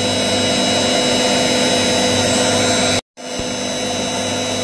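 Electric motor of a bench end mill sharpening grinder running steadily with a hum, the end mill held out of the wheel so there is no grinding. The sound cuts out completely for a moment about three seconds in, then resumes.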